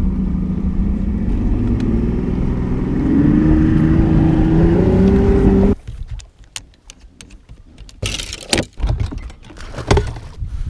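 Bass boat's outboard motor running under way, its pitch rising as it speeds up from about three seconds in, then cutting off suddenly near six seconds. After that, scattered knocks and bumps.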